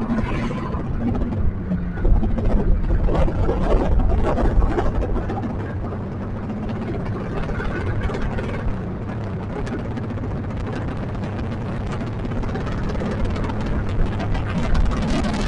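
Motorcycle engine running steadily, a little louder for a few seconds near the start.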